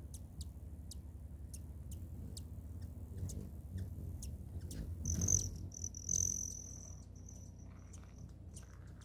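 Hummingbirds at a feeder: short, sharp, high chip notes repeated roughly twice a second. About halfway through a steady high buzz lasts around two seconds as the birds fly off the feeder.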